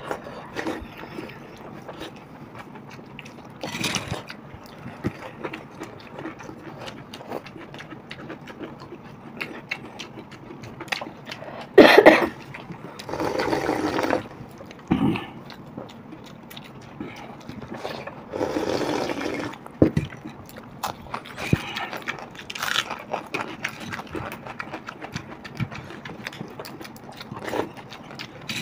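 Hands squishing and mixing watered rice (pakhala bhata) on plates, with wet eating sounds and a few loud slurps of the rice water, the longest lasting a couple of seconds.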